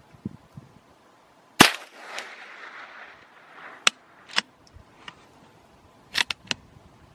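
.22 LR rifle firing a single shot about a second and a half in, its report trailing off in echo. Several sharp clicks follow, the last three in quick succession.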